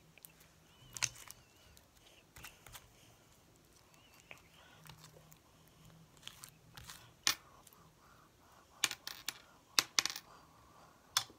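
Sticky bead-filled slime being pulled and squeezed by hand, giving sharp, irregular clicking pops and crackles, with a quick cluster of them near the end.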